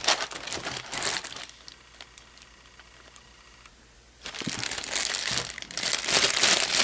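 Clear plastic packaging bags crinkling as they are handled. The crinkling dies down to a faint rustle for a couple of seconds in the middle, then comes back loud about four seconds in.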